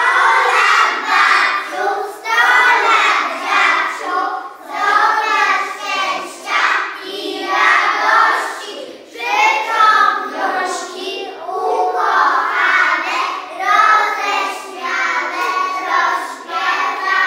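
A group of young children singing a song together in Polish, in phrases of a second or two.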